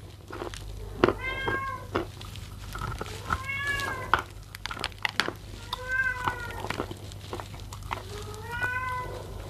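A domestic cat meowing four times, each call under a second long and rising then falling in pitch. Between the calls come short, crisp crunches of wet edible chalk being bitten and chewed.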